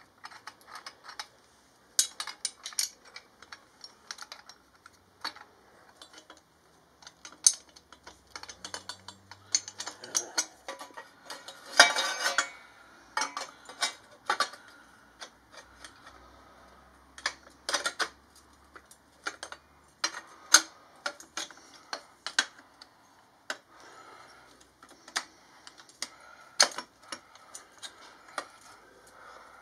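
Irregular metallic clicks, clinks and knocks as hand tools and stainless steel exhaust pipes are handled while the header and collector are fitted, with a brief, denser metal rattle about twelve seconds in.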